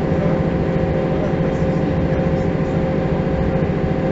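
Mercedes-Benz O405 city bus's rear-mounted six-cylinder diesel engine idling steadily, heard inside the passenger cabin, with a constant whine over its low throb.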